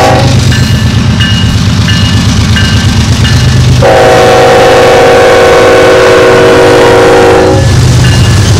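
Freight train locomotive's air horn: a brief toot at the start, then one long blast of about three and a half seconds from a little under halfway. Under it, the low drone of the GE diesel locomotives and the rolling wheels of the passing train, with a faint ding repeating about twice a second.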